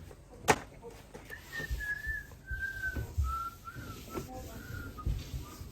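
A person whistling a slow tune of a few held notes that drift downward. A sharp knock comes about half a second in, and low thumps are scattered throughout.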